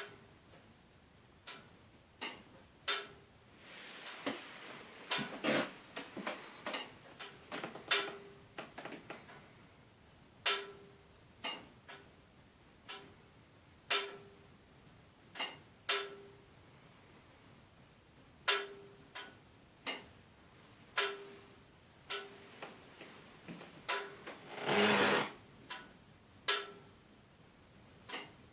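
Termatech TT20 RS wood-burning stove making irregular sharp metallic clicks, many with a short ringing ping, every one to two seconds. Two longer, noisier stretches come about four and twenty-five seconds in.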